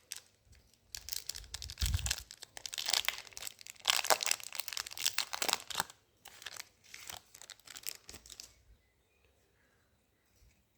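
Yu-Gi-Oh booster pack's foil wrapper being crinkled and torn open by hand. The crackling is dense for about six seconds, turns sparse, and dies away about two-thirds of the way through.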